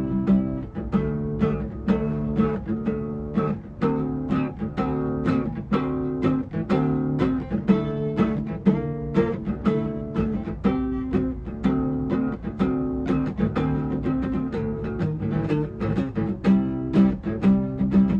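Acoustic guitar played by hand, a steady repeating pattern of plucked chords.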